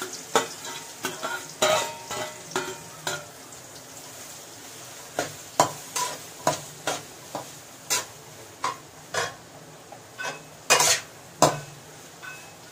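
Sliced onions sizzling in hot oil in a metal kadai as a metal spatula stirs them, knocking and scraping against the pan at an irregular pace, with a short lull in the stirring a few seconds in.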